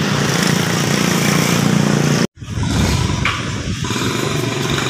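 Street traffic noise, with motorcycle and auto-rickshaw engines running. It cuts out abruptly for an instant a little over two seconds in, then carries on.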